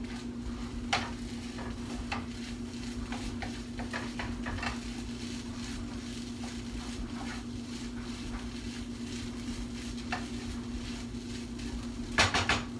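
A utensil stirring, scraping and clinking against cookware in scattered short clicks, with a louder clatter near the end, over a steady low hum.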